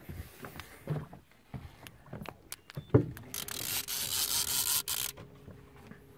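A few knocks and a thump, then about two seconds of loud hissing buzz like a spinning reel's drag giving line to a hooked catfish pulling down. A steady low hum starts with it and carries on.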